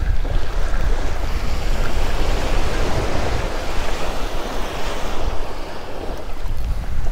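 Small surf waves breaking and washing up a sand beach, with wind buffeting the microphone. The wash swells about two seconds in and eases off again near the end.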